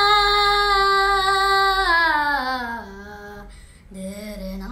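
A boy singing unaccompanied in Hindi, holding one long note on the end of a line that slides down in pitch about two seconds in and fades out a little after three seconds. Near the end he starts a new, lower note.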